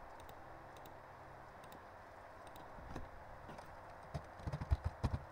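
Computer keyboard typing: a quick run of keystrokes starting about four seconds in, over a faint steady hiss. A few scattered mouse clicks come before it.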